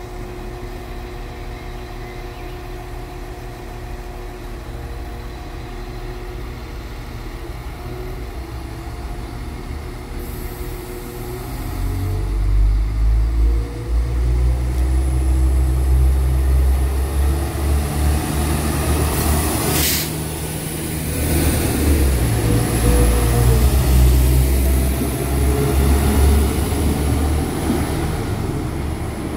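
NI Railways Class 4000 diesel multiple unit idling at the platform, then its diesel engines open up about twelve seconds in as it pulls away and accelerates past. A brief sharp noise comes about twenty seconds in, while the engine note drops for a moment.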